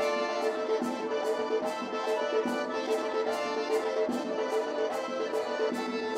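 Circassian folk dance music: a sustained accordion melody over a quick, even percussive beat of sharp clicks, about two to three a second.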